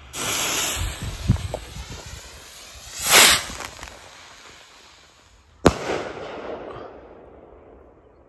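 Firework rocket with a lightning-and-thunder effect: it launches with a loud hiss that keeps going as it climbs and swells louder about three seconds in, then a single sharp bang a little over five seconds in, echoing away.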